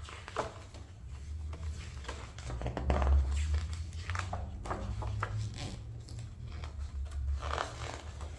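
Pages of a large hardback photography book being turned by hand, several paper swishes and rustles, with a low bump of handling about three seconds in.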